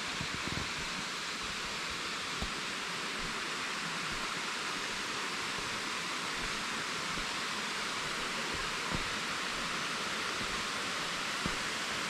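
Waterfall and its cascading rocky creek rushing, a steady even hiss, with a few faint soft thumps.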